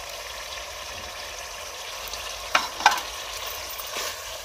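Tinda (round gourd) curry sizzling steadily in a metal pot over a wood fire, with two sharp knocks of a utensil against the pot about two and a half seconds in.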